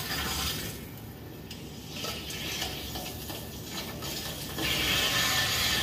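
Clicks and handling at a well pressure tank's valve, then about four and a half seconds in a sudden steady hiss as water rushes through the opened valve into the house plumbing.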